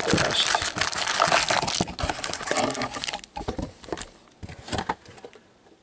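Trading card pack wrapper being crinkled and torn open by hand, dense and loud for the first couple of seconds, then thinning to scattered crackles and clicks.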